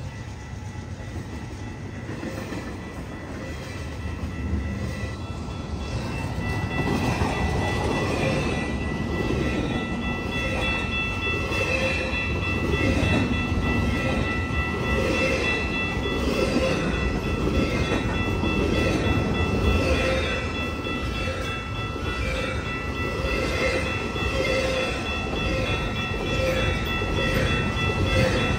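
A long CN freight train rolling past, its cars rumbling with a rhythmic clatter over the rail joints, growing louder over the first several seconds. Steady high-pitched tones ring over the rumble throughout.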